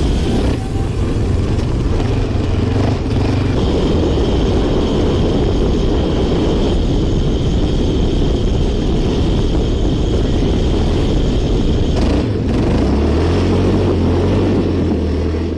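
Off-road vehicle running steadily, with a continuous loud mix of engine and driving noise.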